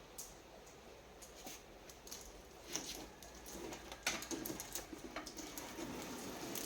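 Light handling noises from close-up bench work: scattered small clicks and short scrapes, sparse at first and busier after about two and a half seconds, with one sharper click near the middle.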